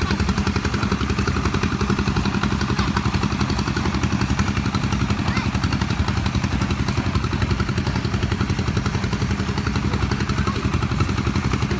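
A small engine running steadily at an even speed, with a fast, regular pulsing.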